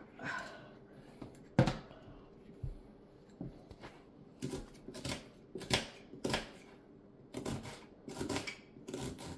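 Kitchen knife rough-chopping an onion on a plastic cutting board, striking the board in uneven runs of chops. There is one sharper knock about one and a half seconds in.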